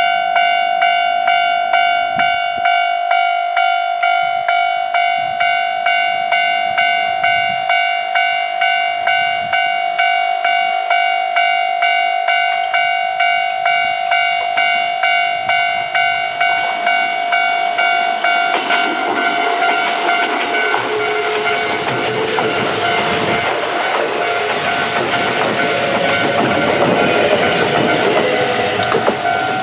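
Japanese level-crossing warning bell ringing at about one and a half strikes a second. About halfway through, a Kintetsu electric train (1440-series and 2800-series cars coupled) approaches, and its wheels rumble and clatter over the rails as it passes while the bell keeps ringing.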